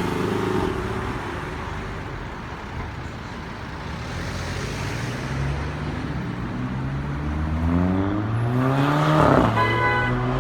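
Mk5 Golf GTI's 2.0 TFSI engine and exhaust accelerating, the note climbing steadily for a few seconds, then a sharp crack from the exhaust about nine seconds in, the DSG upshift "fart", after which the engine keeps pulling.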